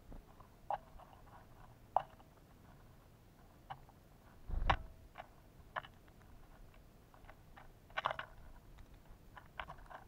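Pileated woodpecker pecking at a wire suet cage: irregular sharp taps of its bill on the suet and wire, a few with a brief ring, one heavier thump about halfway through and a quick run of taps near the end.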